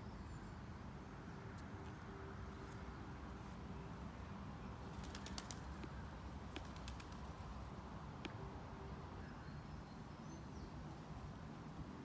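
Steady low outdoor hum with a quick run of sharp clicks or flaps about five seconds in, a few more about a second later, and a single click near eight seconds.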